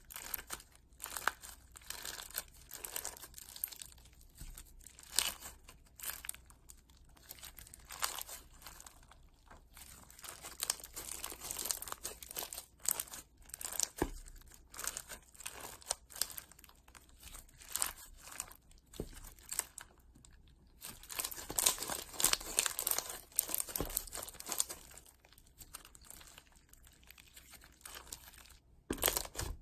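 Clear slime loaded with sequins being squeezed, kneaded and stretched by hand, giving an irregular run of small clicks and crackles that is densest about two-thirds of the way in.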